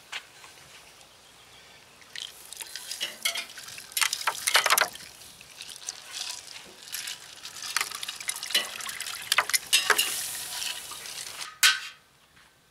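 Tri-tip roast sizzling on the hot grate of a charcoal Weber kettle grill: a hiss with irregular crackles and pops, starting about two seconds in and cutting off shortly before the end.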